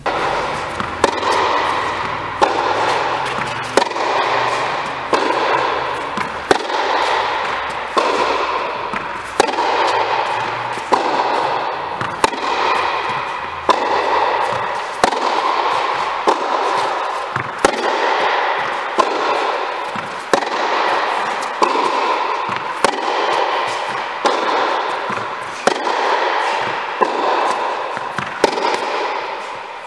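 Tennis rally: the ball struck back and forth by racquets, one of them a Wilson Pro Staff 97 LS (2016), with a sharp pop about every second. Each hit echoes long in the indoor court hall.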